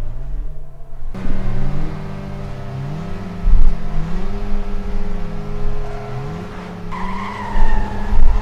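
A car engine accelerating hard, its pitch climbing and dropping back again and again as it runs up through the gears, with a tyre squeal starting about seven seconds in.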